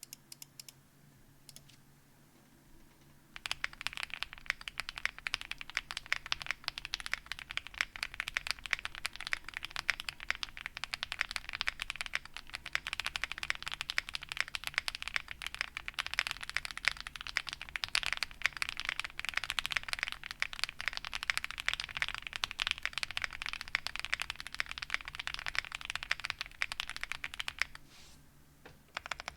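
Zoom65 mechanical keyboard typed on fast and continuously: linear frankenswitches with NK Cream housings, Ink v2 stems and 55 g dual-stage springs, mounted on a polycarbonate plate with foams, under GMK Fuji doubleshot ABS keycaps. The steady typing starts about three seconds in and stops shortly before the end, and a few last keystrokes follow.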